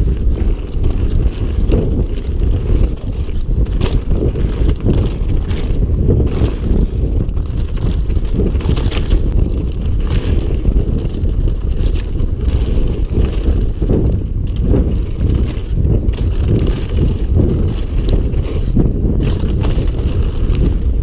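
Mountain bike riding fast down a rough dirt trail: a constant low rumble of wind buffeting the microphone and tyres on the ground, broken by frequent knocks and rattles from the bike over bumps.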